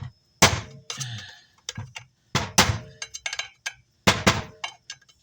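Hard parts knocked and clinked against a workbench while being handled: three louder knocks, about one every two seconds, with lighter clicks in between.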